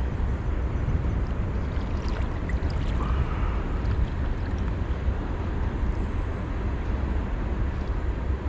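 Steady low rumble and hiss of outdoor noise on the water, with faint gurgling of water around a kayak and a few light clicks about two to three seconds in.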